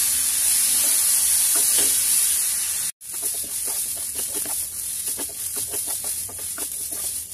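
Washed polao rice sizzling as it fries in oil in a frying pan, stirred with a wooden spoon in repeated scraping strokes. The sound cuts out for a moment about three seconds in, and the sizzle is quieter after it.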